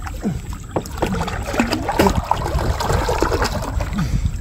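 River water splashing and sloshing in irregular strokes as a person swims and wades through it.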